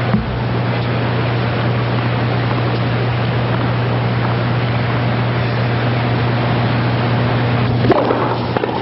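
Steady low electrical hum and hiss on a broadcast audio feed. About eight seconds in there is a sharp knock, and the hum cuts out.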